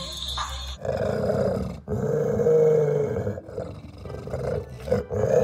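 A pet growling at a food bowl: a string of long, low growls, each a second or more, with short breaks between them.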